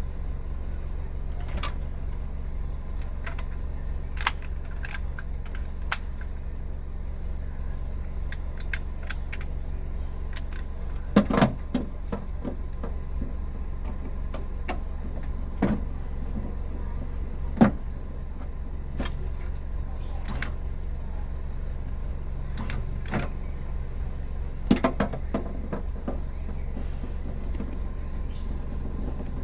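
Scattered clicks and knocks of hand work on a car door over a steady low hum, with a louder cluster about a third of the way in, a sharp knock a little past halfway, and another cluster near the end.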